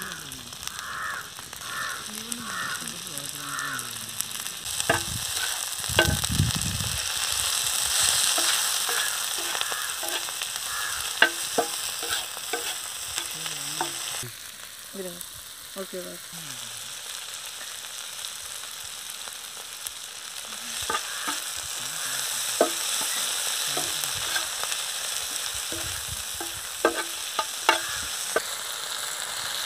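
Chopped onion, garlic, chilli and tomato sizzling in a flat iron pan, with a steel spatula stirring and clicking against the iron now and then.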